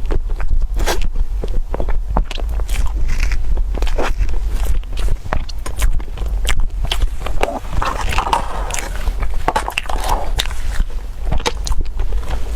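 Close-miked biting and chewing of crunchy food: a dense, irregular run of crisp crunches.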